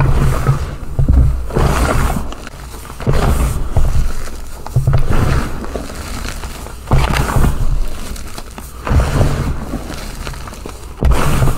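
Reformed gym chalk blocks being crushed into loose powder: crunchy, crispy crumbling in bursts every second or two, each with a dull thump.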